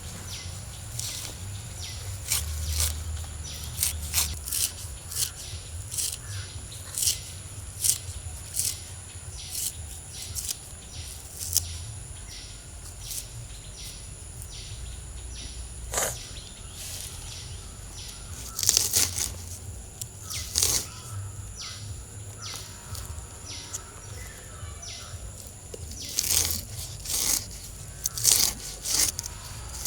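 Crisp rustling and snapping of fresh costus (thebu kola) leaves being handled, torn and cut, in irregular short crackles that come thicker at times. A faint, steady, high-pitched whine runs underneath.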